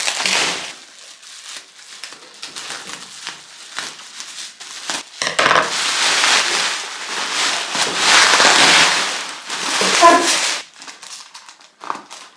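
Plastic bubble-wrap packaging crinkling and rustling as a parcel is handled and unwrapped, loudest for several seconds in the middle, with quieter crackling between and a few small clicks near the end.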